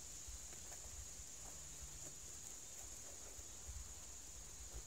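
Faint rustling and light clicks of a honeysuckle vine weaver being worked over and under beech-branch spokes, over a steady high-pitched insect chorus.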